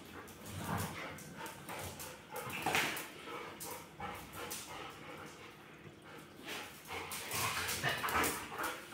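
Two golden retrievers play-fighting: irregular dog vocalizations in bursts, the loudest about three seconds in and more between seven and eight seconds, with short scuffling clicks of paws and claws on a tile floor.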